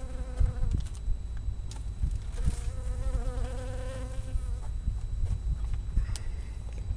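Wind rumbling on the microphone, with a steady buzzing drone for about two seconds in the middle, like a flying insect passing close. There are a few light clicks of paper handling.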